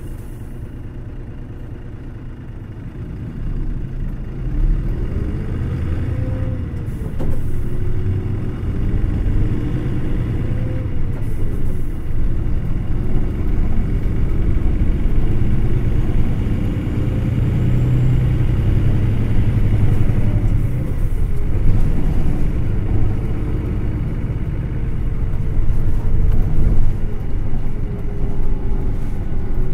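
2010 Hino Blue Ribbon City Hybrid (BJG-HU8JMFP) city bus heard from inside, its diesel-hybrid drivetrain running quietly for the first few seconds, then picking up about three seconds in as the bus gathers speed. The engine note rises and falls in pitch several times, and a whine slides down in pitch near the end.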